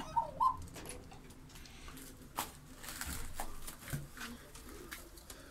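Domestic pigeons cooing, a couple of short coos in the first half-second. After that only faint scattered taps and shuffles in the loft.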